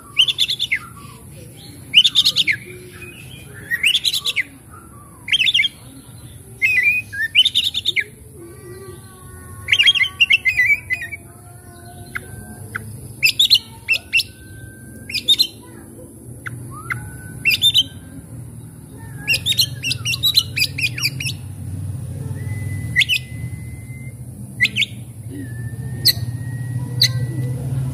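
Oriental magpie-robin (kacer) singing: short, loud, varied phrases about every one and a half to two seconds, with lower whistled notes in between around the middle and a few drawn-out level whistles near the end. A low hum runs underneath and grows louder in the second half.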